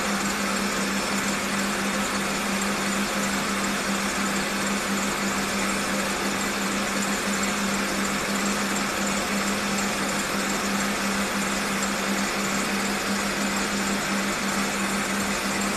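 Electric stand mixer running steadily, whipping egg whites for marshmallow: an even motor hum with a steady low tone.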